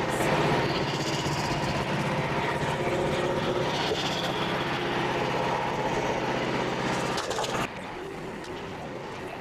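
Frontier OS27 portable sawmill's gasoline engine running steadily. A little over seven seconds in, it drops abruptly to a much quieter background rumble.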